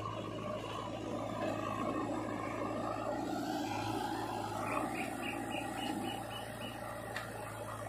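Diesel engines of a JCB 3DX backhoe loader and a Sonalika tractor running steadily, with a constant low hum. About five seconds in comes a quick run of about eight high-pitched pulses, roughly four a second, then a single click.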